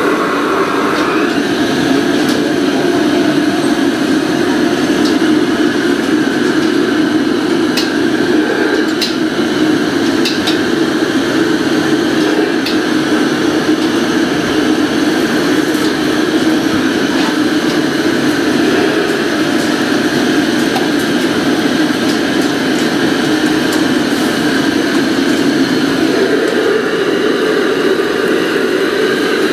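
Steady roar of a commercial Chinese wok range's gas burners, with a few sharp metallic clinks of utensils on the woks about a third of the way in.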